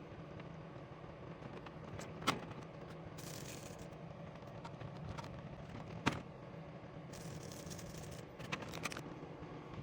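Small items being handled and set down on a vanity table: two sharp clicks or knocks, about two seconds in and again about six seconds in, with stretches of rustling in between, over a faint steady hum.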